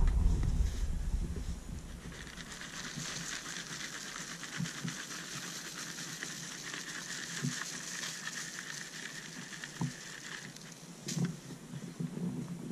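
Fine soil conditioner shaken out of a plastic bucket and falling onto bare soil in a steady rustling hiss that stops near the end, with a few light knocks.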